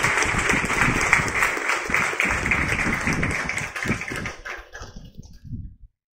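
An audience applauding, many hands clapping at once; the clapping dies away about four to five seconds in.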